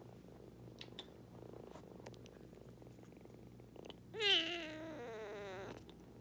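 Kitten purring softly and steadily, then giving one drawn-out meow about four seconds in. The meow lasts about a second and a half, is loudest at its start, and falls slightly in pitch with a wavering tone.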